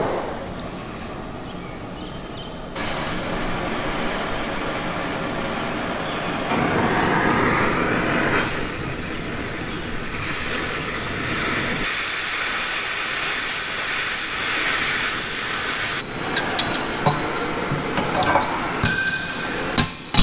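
Oxy-acetylene cutting torch hissing as it melts out a seized axle spindle pin; the hiss grows much louder about three seconds in and cuts off about four seconds before the end. Short metallic clinks follow.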